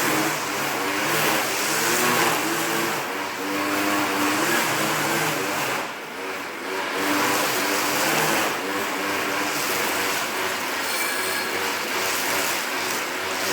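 Grass trimmer running while cutting grass, its motor pitch rising and falling as it is throttled up and eased off, with a brief dip about six seconds in.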